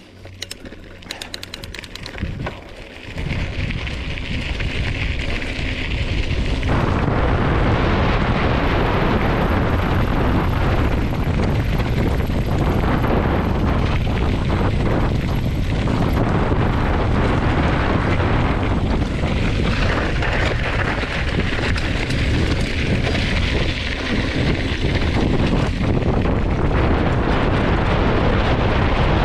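Wind buffeting the camera microphone and tyres rumbling on a dirt road as a mountain bike speeds downhill, with a few clicks and rattles at first. The rumbling noise builds over the first several seconds as the bike picks up speed, then stays loud and steady.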